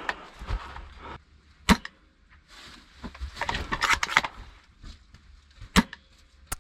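Two sharp airsoft rifle shots about four seconds apart, with a stretch of rustling in between.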